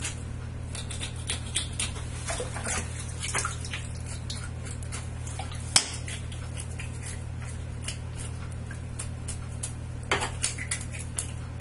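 Kitchen knife scraping along a whole fish: a run of short, scratchy strokes, with one sharp click about halfway through. A steady low hum runs underneath.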